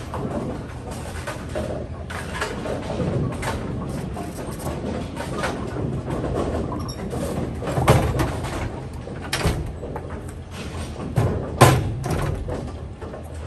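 Bowling balls knocking together on a ball-return rack as they are handled: a few sharp knocks, the loudest near the end, over a steady low hum of bowling-alley machinery.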